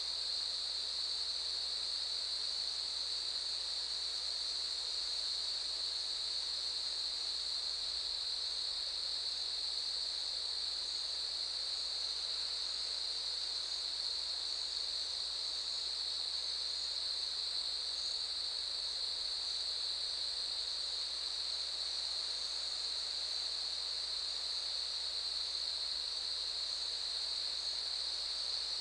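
Chorus of cicadas calling: a steady, unbroken high-pitched drone that holds one pitch without pause.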